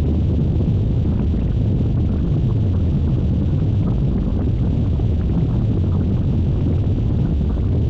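A creepy sound effect: a dense, steady low rumble with faint crackling above it, unchanging throughout.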